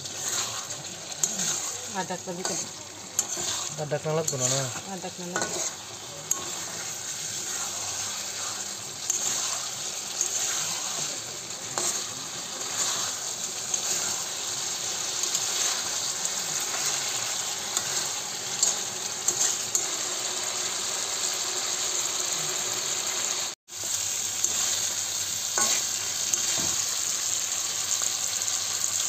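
Chicken curry with potatoes sizzling in its oil in a metal kadai as it is fried down (kosha), stirred and scraped with a metal spatula. A steady sizzle with frequent short clicks of the spatula against the pan.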